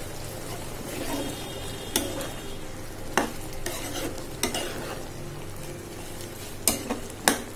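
Steel ladle stirring a simmering jackfruit-seed curry in a pan, with about six sharp clinks of the ladle against the pan over a steady sizzle.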